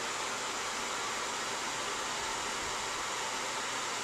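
Steady background hiss, even and unchanging.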